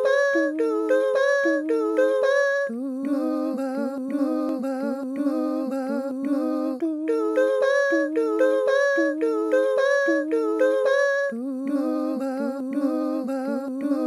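A cappella music track of layered hummed 'doo' vocals. Short bouncing notes alternate, about every four seconds, with a held low hum under quicker notes.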